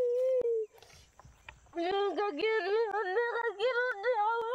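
A girl wailing in grief. A long held crying note breaks off a little under a second in, and after a short pause her voice comes back in a wavering, rising and falling wail.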